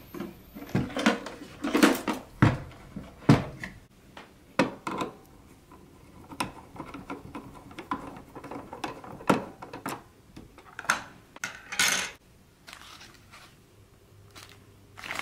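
Hard plastic clattering and knocking as a toy claw machine's plastic casing is handled and turned over, with a small screwdriver working the screws of its battery cover: a string of sharp taps and clicks, loudest in the first few seconds and fainter near the end.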